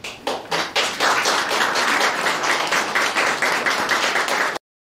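Audience applauding: a few scattered claps at first, then full applause from about a second in, which cuts off suddenly near the end.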